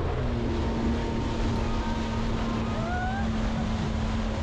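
Jet ski engine running steadily at speed, with wind buffeting the microphone and rushing water spray.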